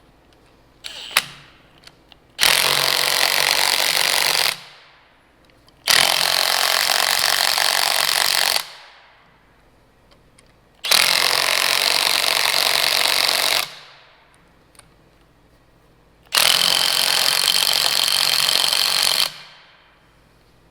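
A hammering power tool run in four bursts of two to three seconds each, each dying away as it is let off, a few seconds apart; a short clank about a second in.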